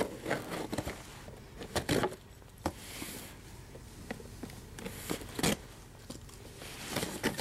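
Cardboard shipping box being handled and turned over: scattered knocks and clicks, with a brief scraping hiss about three seconds in.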